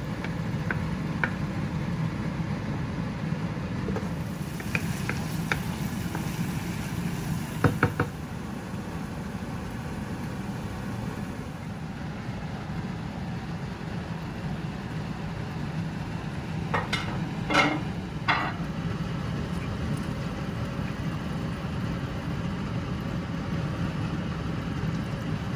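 Curry cooking in a pot: a steady low rumble of cooking under the pot, with scattered metallic clinks of a utensil against the pot, loudest in a cluster about eight seconds in and again around seventeen to eighteen seconds in.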